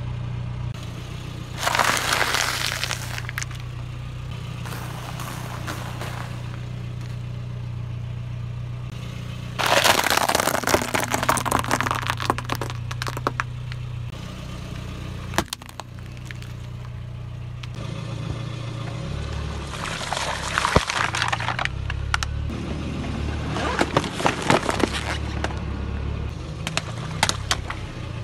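Car tyre rolling over and crushing objects, including plastic containers and dry pasta, which crack and crunch in several bursts over a steady low engine hum. The longest and loudest bursts come about a third of the way in.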